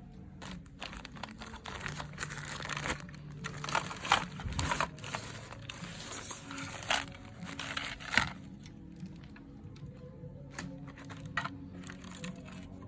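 Packaging of a toy gun being unboxed by hand: irregular crinkling, rustling and tearing, busiest for the first two-thirds, with a few sharper crackles.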